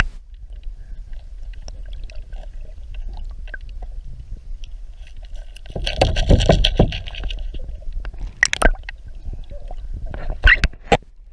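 Water splashing and sloshing against the side of a boat, over a steady low rumble. About six seconds in comes a loud burst of splashing, followed by a few sharp knocks near the end.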